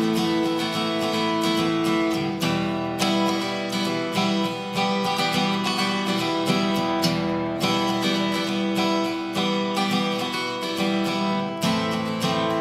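Solo acoustic-electric guitar playing an instrumental passage: steadily picked and strummed notes over sustained, ringing chord tones.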